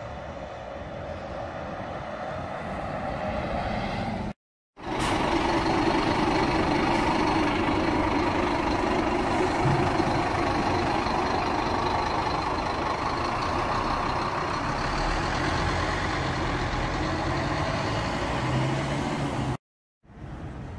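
A bus engine running close by with road noise, a steady mechanical drone. It breaks off twice in brief silences, and is louder after the first break about four seconds in.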